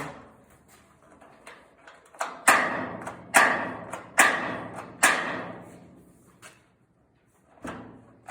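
Steel pickup tailgate slammed shut about four times, a second apart, each a sharp clang with a short ringing tail, as newly fitted hidden latches snap onto their pins; the closing marks where the latch holes are to be drilled. Lighter knocks follow near the end.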